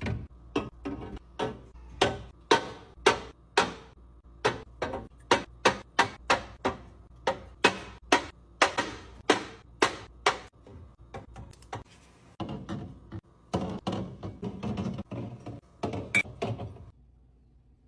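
Drinks being set one after another into a mini beverage fridge: sharp knocks and clinks about two a second, then a denser stretch of clattering that stops shortly before the end.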